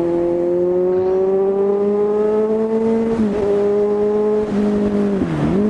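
Kawasaki Z1000's inline-four engine pulling with revs rising slowly, then dropping in a quick step about three seconds in like an upshift, and holding steady with a brief dip and recovery near the end.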